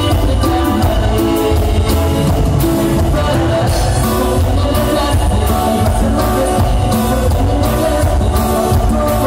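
A live band playing a song with singing, loud and amplified in a large hall, with keyboard and a steady beat.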